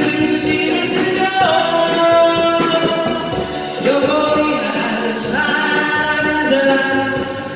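Live band music on keyboard and drums: a sustained melody line with notes that slide into pitch, over a steady beat with regular cymbal ticks.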